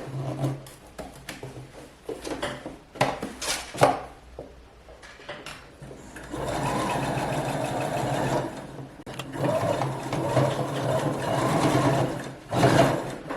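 Sewing machine stitching a zipper into a skirt seam, starting about six seconds in and running steadily, with a short break partway through. Before it, scattered clicks and rustling of the fabric and zipper being handled.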